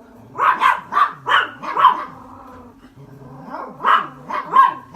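A dog barking in two volleys: about five quick barks in the first two seconds, then three more near the end. Under the barks runs the steady hum of the body vibration machine.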